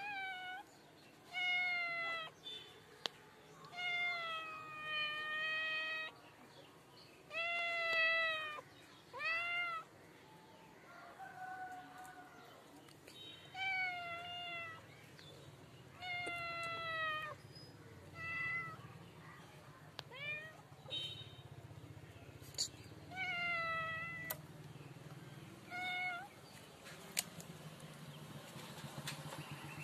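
A domestic cat meowing again and again, about a dozen drawn-out meows a second or two apart, many rising and then falling in pitch.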